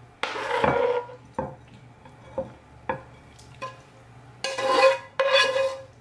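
Long metal spatula scraping stir-fried chicken out of a frying pan into a ceramic bowl: a scrape, several sharp taps of metal on the pan, then two longer, louder ringing scrapes near the end.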